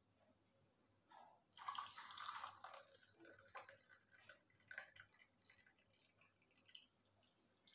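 Faint pour of hot liquid from a pan into a cup, lasting about a second and a half, followed by scattered drips and light clinks: the freshly boiled kadha being served.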